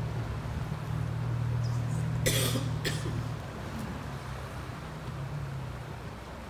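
Low steady hum of an inflatable boat's outboard motor running, easing off about three and a half seconds in. A short sharp noisy burst comes about two seconds in.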